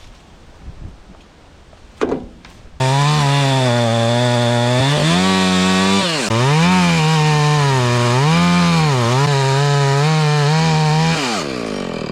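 Milwaukee cordless top-handle chainsaw cutting wood, starting abruptly about three seconds in; its motor whine repeatedly dips and recovers in pitch as the chain loads up in the cut. Near the end the whine winds down as the trigger eases off.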